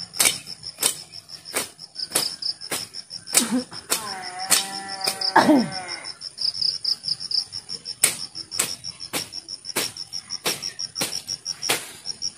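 Insects chirping steadily in a high pulsing trill, with regular sharp ticks about three times a second. Around the middle a farm animal calls twice, the second call falling in pitch.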